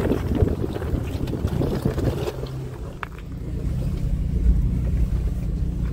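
An SUV's engine running low and steady as the truck crawls in low speed over loose rock, with an irregular rumble and crackle of tyres on stones and wind on the microphone over the first two seconds, and a single click about three seconds in.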